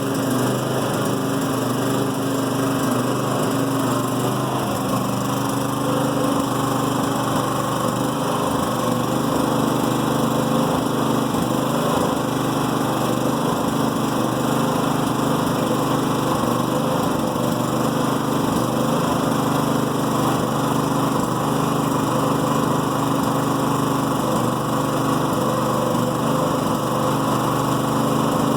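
Firman portable generator's small engine idling roughly in Eco mode: a steady run broken by irregular low pops, which the owner takes for a misfire or slight backfire and suspects is not normal.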